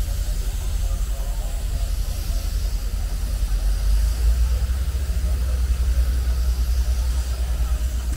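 Wind buffeting the microphone in a steady low rumble, with a faint hiss above it.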